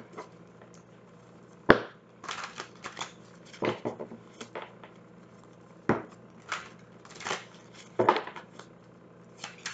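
A deck of tarot cards being shuffled by hand: irregular soft slaps and riffling rustles of the cards. There is one sharp slap about two seconds in.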